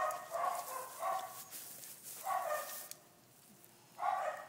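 Labrador retriever giving short whining yips, about five brief calls with a quiet pause before the last one, over some scratchy rustling.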